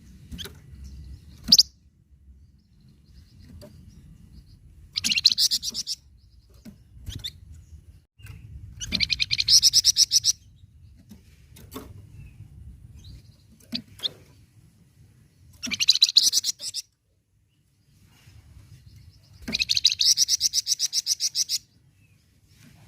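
Flamboyan songbird singing: four bursts of rapid, evenly repeated high notes, each lasting one to two seconds, with single sharp chirps between them.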